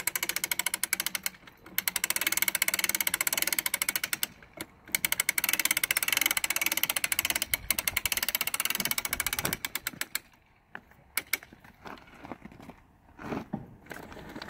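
A hand winch is cranked under load, about 150 pounds of seed bags, its ratchet pawl clicking rapidly. The cranking pauses briefly twice and stops about ten seconds in, followed by a few scattered clicks and knocks.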